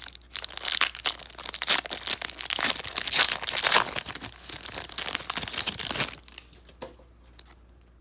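Trading-card pack wrapper being torn open and crinkled by hand, a dense crackling and tearing that stops about six seconds in.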